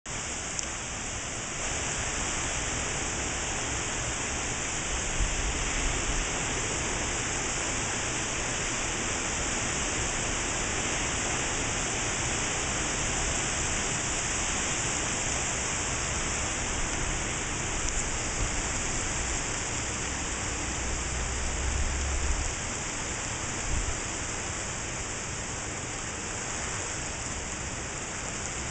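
Heavy tropical-storm rain falling steadily, a dense, even hiss. Wind gusts add low rumbles a few seconds in and again about twenty seconds in.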